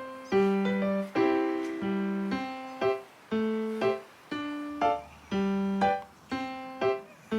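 Background music: a light piano or keyboard melody of separate notes, each struck and fading, in a steady rhythm.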